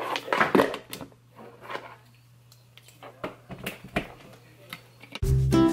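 Clicks and knocks of a small plastic food chopper's lid and bowl being handled and set in place, with a few lighter ticks later, over a low steady hum. About five seconds in, the hum cuts off and music starts abruptly.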